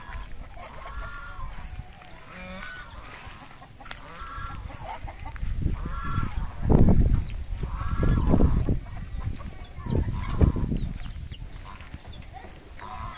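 Domestic geese honking and hens clucking, a call every second or two, with short high chirps in the second half. Loud low rumbles on the microphone come midway.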